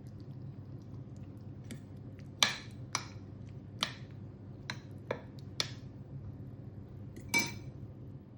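Kitchenware clinking and knocking: about eight short, sharp clinks at uneven intervals, the loudest about two and a half seconds in and near the end, over a steady low hum.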